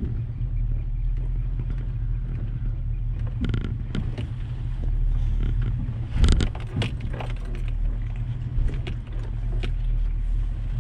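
A Toyota 4x4's engine running at low revs while crawling over rough trail, with scattered knocks and clunks from the truck bouncing over rocks, the loudest about six seconds in.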